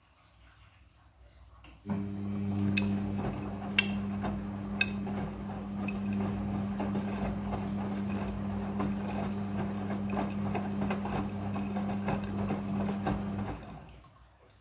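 Midea front-loading washing machine starting up suddenly about two seconds in and running with a steady motor hum and rushing, sloshing noise, with a few sharp knocks about a second apart early on, then winding down and stopping near the end.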